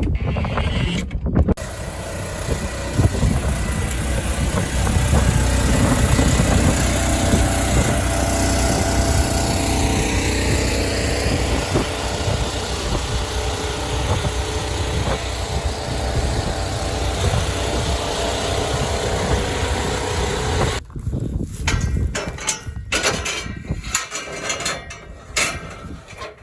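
An engine runs steadily for about twenty seconds, then cuts off suddenly, leaving quieter scattered knocks and handling sounds.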